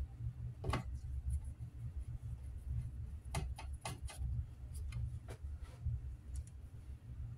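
Light, irregular metallic clicks and taps of a screwdriver working screws in the sheet-metal case of a power supply, several coming close together about halfway through, over a low steady hum.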